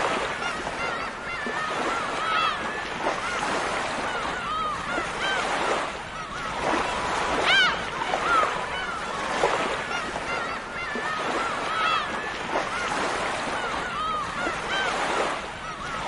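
A flock of gulls calling, many short arched calls overlapping throughout, one louder call about seven and a half seconds in, over a steady wash of surf.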